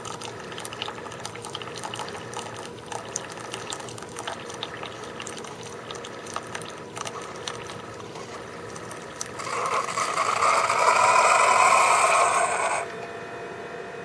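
Keurig single-cup coffee maker brewing, a thin stream of coffee trickling into a paper cup over the machine's running noise, with small clicks. Near the end comes about three seconds of louder sputtering hiss, the air purge that ends the brew, which cuts off suddenly.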